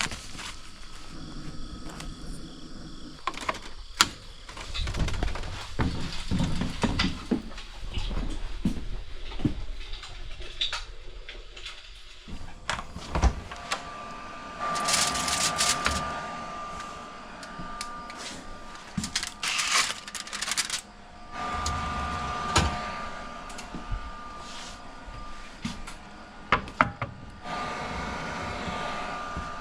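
Kitchen prep handling sounds: a string of clicks, knocks and clatter from utensils, containers and cupboard doors, with several hissing stretches of a second or two.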